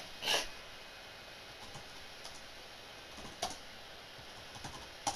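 Computer keyboard being typed on in slow, scattered faint key clicks. A short burst of hiss comes near the start and is the loudest sound.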